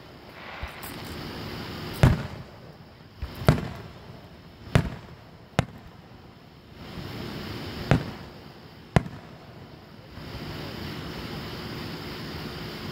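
Fireworks show: aerial shells bursting in about seven sharp booms at irregular intervals, then a steady wash of noise from about ten seconds in.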